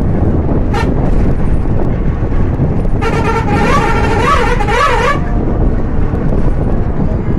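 Steady engine and road rumble from a moving bus, with a multi-tone musical vehicle horn sounding for about two seconds near the middle, its pitch warbling up and down.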